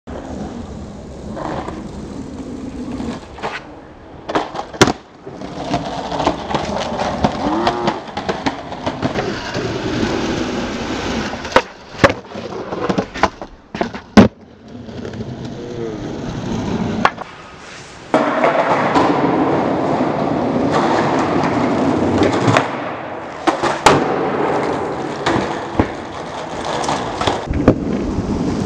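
Skateboard wheels rolling on concrete, broken by a series of sharp clacks of the board popping and landing.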